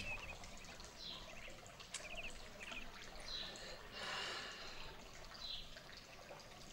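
Faint birdsong: a few short chirps and brief falling whistles now and then, over a soft steady background hiss that swells briefly about four seconds in.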